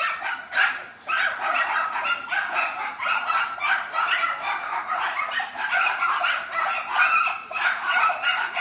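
Dog barking and yipping over and over, a continuous run of short barks several a second, with a brief pause about a second in.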